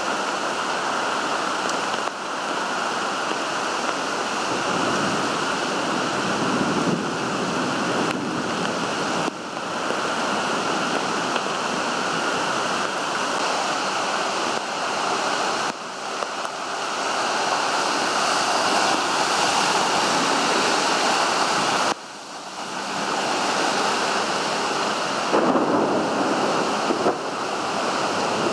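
Heavy downpour: a dense, steady hiss of pouring rain and running water, changing abruptly several times.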